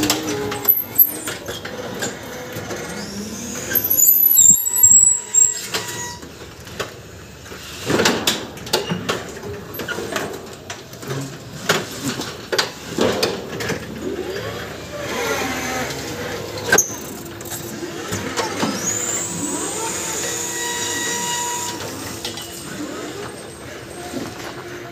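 Electric reach truck manoeuvring: motor whine over a steady hum, with high squeals in the first few seconds, scattered clunks and knocks, and a rising whine about three-quarters of the way through.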